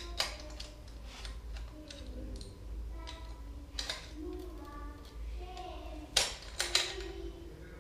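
Scattered sharp clicks and taps from a short-track speed skate being set and leveled in a sharpening jig by hand, the loudest a quick run of three clicks about six seconds in.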